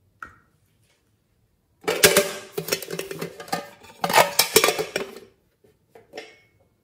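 Clattering and clicking of a small hard box with a handle being handled and opened, with the brushes inside rattling against it, in two runs of a second or so each. A single light tap comes just after the start, and a couple of soft ticks come near the end.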